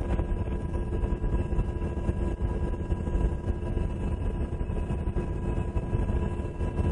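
Black Hawk helicopter heard on board: a steady, heavy drone of engines and rotor with several constant whining tones over it.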